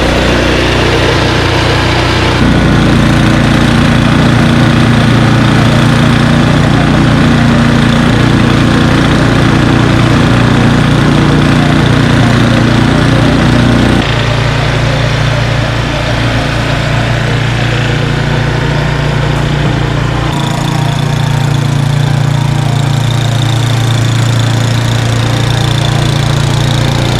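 Troy-Bilt Storm snow blower's engine running steadily and loudly, its note shifting abruptly a few times.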